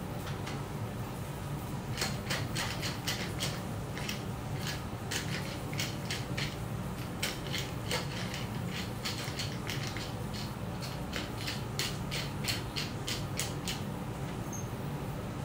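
Hand-twisted glass seasoning mill grinding: rapid ratcheting clicks in quick clusters, starting about two seconds in and stopping near the end, over a steady low hum.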